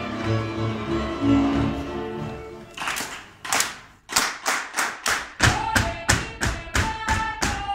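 Folk fiddle music playing, breaking off about three seconds in. Then a steady beat of sharp claps and foot stamps on a wooden floor from the folk dancers, about three strikes a second.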